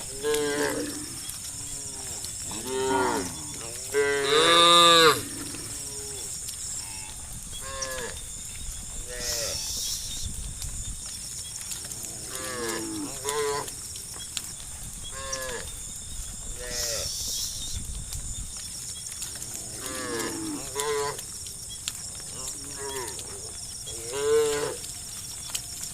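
Cattle mooing, one drawn-out call after another throughout, the loudest about four to five seconds in.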